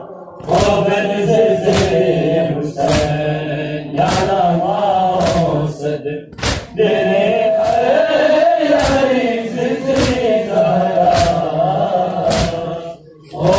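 A crowd of men chanting a Muharram noha (mourning chant) in unison. Sharp slaps of hands beating on chests (matam) land together about once a second, in time with the chant, with brief pauses near the start and near the end.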